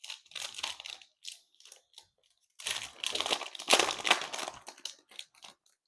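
Crinkling of a foil trading-card pack wrapper being handled and torn open. A few short rustles come first, then a longer, louder stretch of crinkling about halfway through.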